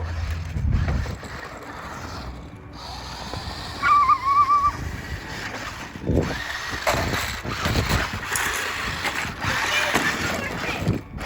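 Battery-powered Hot Wheels Rhinomite RC monster truck driving, its electric drive motors and gearbox whirring in uneven spurts as it speeds up and slows. A short high wavering tone sounds about four seconds in.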